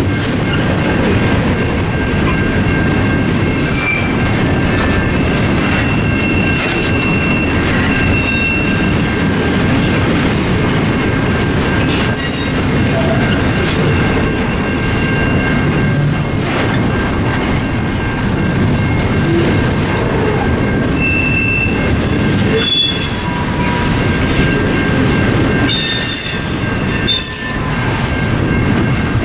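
Double-stack intermodal freight train rolling through a level crossing: a steady rumble of wheels on rail with clicks over the joints, and sharp wheel squeals about twelve seconds in and again near the end. The crossing's mechanical bells ring steadily over it.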